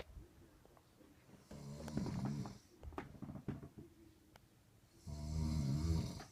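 A person snoring: two long snores, each about a second long and about three and a half seconds apart, with a few faint clicks in the quiet between them.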